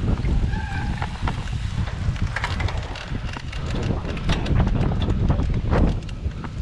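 Wind buffeting the microphone of a rider-mounted camera on a cyclocross bike, with frequent rattles and clicks from the bike bouncing over a rough dirt track.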